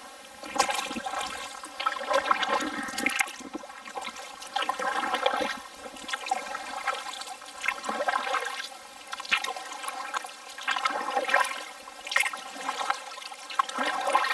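Kayak paddle blades dipping and pulling through the water in a steady run of strokes, each one splashing and then trickling as water runs off the blade.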